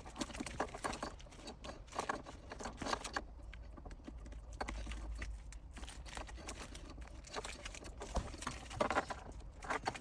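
Irregular small clicks, taps and rustling from hands working a gear shifter's leather shift boot and plastic collar around the shift knob.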